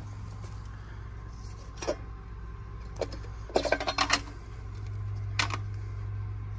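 Metal cover of an outdoor AC disconnect box being flipped open and its pull-out block handled: a few sharp metallic clicks, then a quick cluster of clicks and rattles around the middle, and one more click near the end, over a steady low hum.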